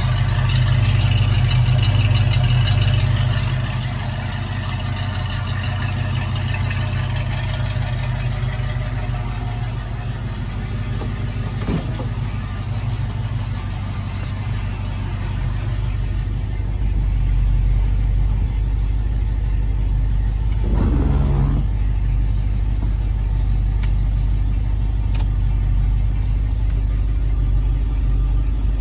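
Ford 302 small-block V8 idling steadily, louder for the first few seconds and again from a little past halfway.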